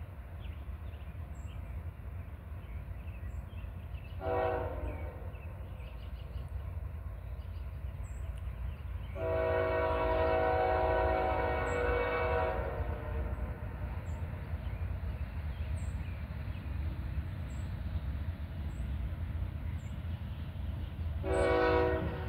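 Horn of an approaching CSX freight locomotive, CSXT 3126: a short blast about four seconds in, a long blast of about three seconds near the middle, and another short blast near the end, in the pattern of a road-crossing warning. A steady low rumble runs underneath.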